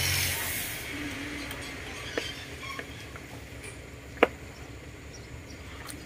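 Motorbike engine running with a hiss, cutting off within the first second. Then light scattered clicks and knocks, with one sharp click about four seconds in.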